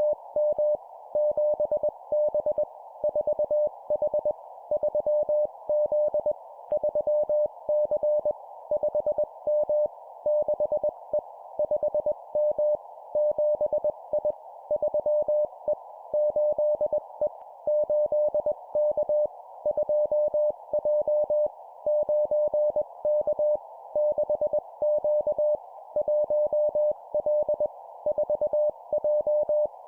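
Morse code (CW) practice tone keyed at 20 words per minute, a single steady pitch sending short groups of two letters or numbers with gaps between words, over a steady hiss. The keying stops near the end.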